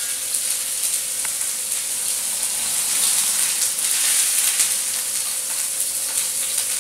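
Stuffed pork fillet sizzling steadily in a hot frying pan as it is seared, with scattered crackles.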